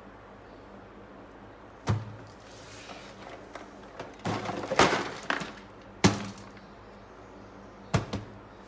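Handling noise from objects being moved about at close range. There is one sharp knock about two seconds in. Around the middle comes a burst of rustling and scraping, followed by another sharp knock. Near the end there are two quick knocks.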